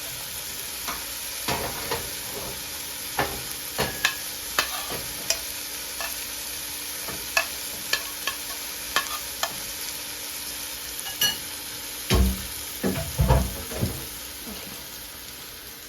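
Food sizzling in a hot frying pan while a utensil stirs it, making frequent sharp clicks and scrapes against the pan, with a few heavier knocks about three quarters of the way through.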